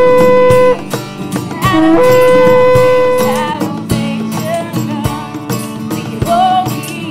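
A long spiralled shofar is blown in two long, steady blasts, each starting on a short lower note that jumps up to the held pitch. The first ends less than a second in; the second runs from about two seconds to three and a half. A music track with a steady beat plays under both, and after the second blast it carries on with shorter wavering notes.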